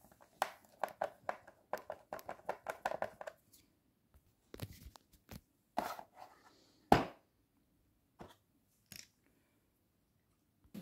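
Plastic clicks and knocks of a twin-wheel chair caster being worked and pulled out of its socket in the chair base. A quick run of rattling clicks fills the first three seconds or so, then come a few separate knocks, the loudest about seven seconds in.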